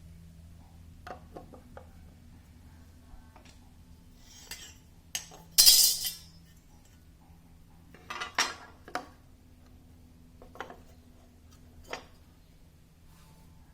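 Metal parts clinking and knocking as they are handled, in scattered single knocks. There is a louder, brief scraping rattle about halfway through, and a cluster of knocks a little later.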